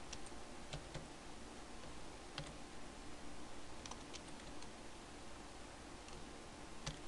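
Computer keyboard being typed on slowly: scattered, faint keystroke clicks, a few in quick pairs with pauses of a second or more between, over a steady low background hiss.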